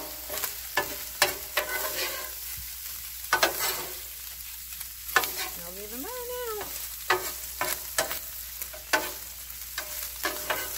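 Two metal spatulas scraping and clacking against a hot flat-top griddle as ground beef with peppers and onions is stirred and chopped, over a steady sizzle of the frying meat.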